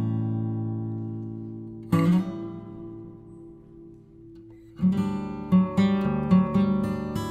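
Background music on acoustic guitar: a strummed chord about two seconds in rings and fades, and a quicker strummed pattern starts about five seconds in.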